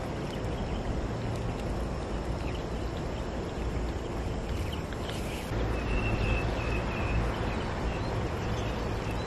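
Wind buffeting the microphone: a steady low rumble that gets a little louder about halfway through, with a few faint high chirps near the middle.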